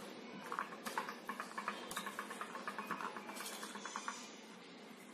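Plastic spoon stirring chopped vegetable salad in a plastic bowl: soft scraping and rustling of the vegetables with rapid light clicks of the spoon.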